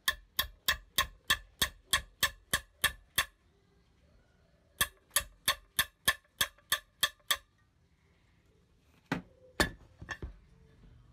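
Hammer tapping a small pin into the lug of a spring balance's housing, steady blows about three a second: a run of about eleven, a short pause, then about nine more. A few heavier knocks near the end.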